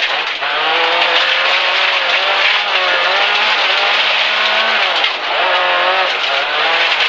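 Suzuki Swift 1300 rally car's engine heard from inside the cabin, pulling hard with its pitch climbing. It breaks briefly for gear changes near the start and again about five seconds in, over a steady hiss of tyres on gravel.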